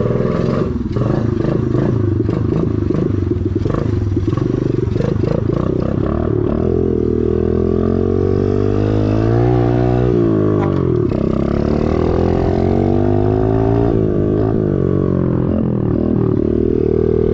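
Chinese pit bike's small single-cylinder four-stroke engine running as the bike is ridden on its first test ride, the engine note climbing and dropping several times as the throttle is opened and closed, with some mechanical clatter. The engine is running on a freshly installed carburettor with the air filter fitted.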